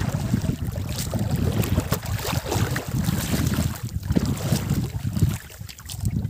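Wind buffeting the microphone in an uneven low rumble, with water splashing as a person wades through shallow water. A wet cast net is shaken out onto the mud in short wet slaps. The sound dips briefly near the end.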